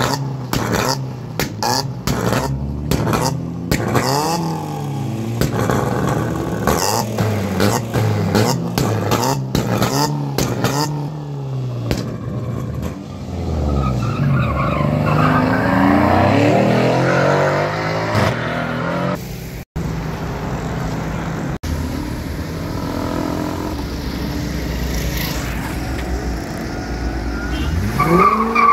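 Tuned car engines revving hard, with rapid exhaust pops and bangs through the first ten seconds or so: a lowered sedan's exhaust backfiring, with flame visible at the tailpipe. Around the middle the engine noise thickens and grows louder, then settles into steadier engine running, with a rev rising right at the end.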